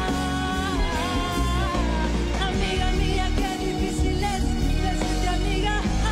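A woman singing a ballad live into a handheld microphone over a live band, holding long notes with vibrato.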